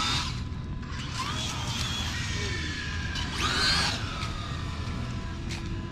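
An RC drag car's electric motor whines up and back down in a short burst about three and a half seconds in, over a steady low rumble and scattered clicks.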